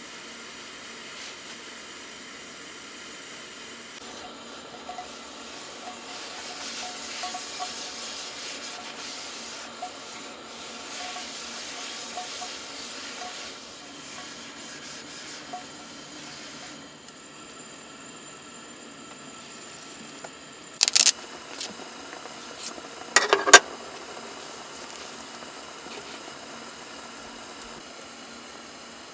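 Portable gas stove burning with a steady hiss. A few loud, sharp clinks come about two-thirds of the way through.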